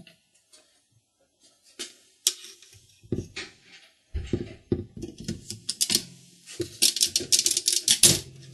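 Mechanical one-arm bandit's works being operated: scattered clicks, then metal clacks as the handle is pulled, the payout and clock parts moving. Near the end come rapid ticks and a loud clack.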